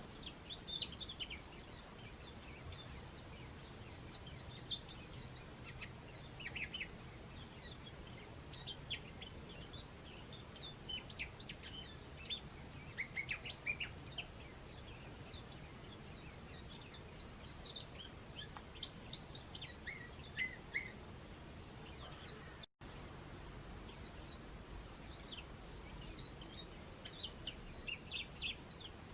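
Small garden birds chirping: many short, high calls scattered throughout, over a steady low background rumble. The sound drops out completely for a split second about three-quarters of the way through.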